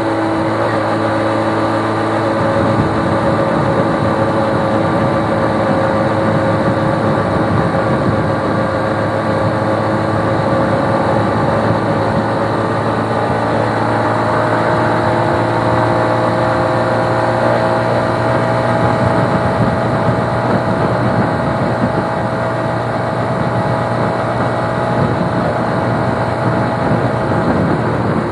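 Small motorcycle's engine running while riding at a steady cruise, with a constant rush of wind and road noise. The engine note rises slowly in pitch over the middle of the ride, then holds.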